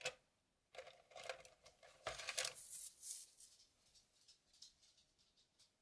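Faint clicks and knocks of art supplies handled on a tabletop, then a paintbrush scrubbing through paint on a palette for about a second and a half, followed by a few soft taps.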